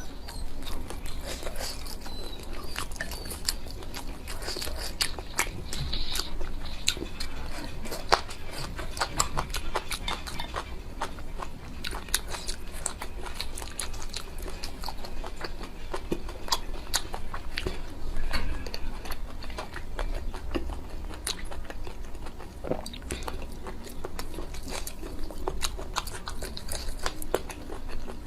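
A person chewing and biting food close to the microphone: a dense, irregular run of crisp crunches and wet mouth clicks.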